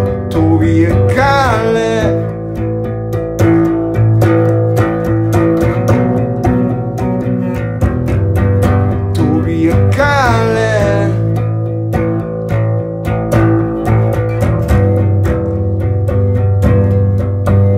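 Instrumental break of a song: guitar playing over a steady low bass, with a gliding high melody line about a second in and again about ten seconds in.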